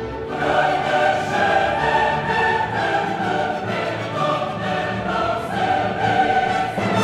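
Background music: a choir singing with an orchestra, swelling in at the start and then held full and steady.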